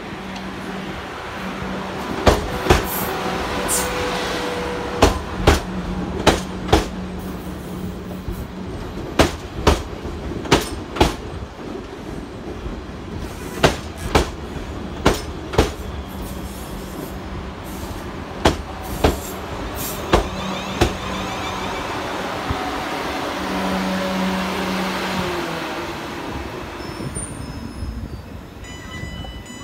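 Class 444 Siemens Desiro electric multiple unit running into the platform and slowing to a stop. Its wheels give sharp clacks in twos and threes over the rail joints, under a steady electric hum, with a swell of rushing noise a few seconds before it halts. A steady high electronic tone starts near the end.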